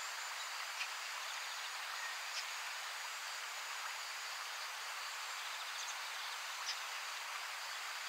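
Riverside outdoor ambience: an even, steady hiss with a few faint, very short high ticks, about one, two and a half, and seven seconds in.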